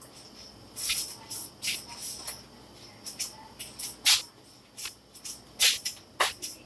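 A run of short, irregular rustles and scuffs, about a dozen, from someone moving about and handling things at a kitchen counter.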